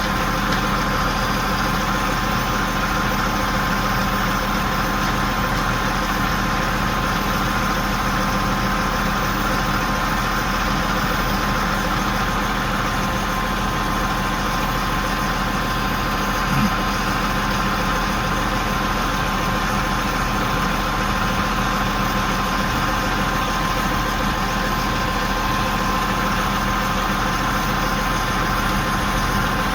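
A big crane's engine running steadily at idle: a constant hum with a few steady tones. There is one brief knock a little past the middle.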